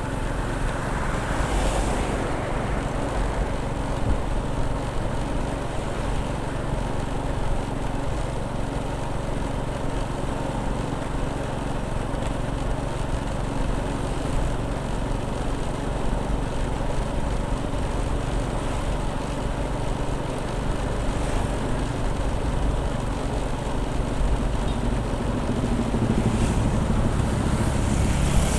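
Motorcycle riding along a road, its engine running steadily under a constant rush of wind and road noise.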